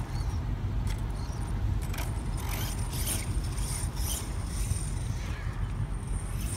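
Redcat radio-controlled monster truck driving across grass: a steady low rumble with short scraping bursts.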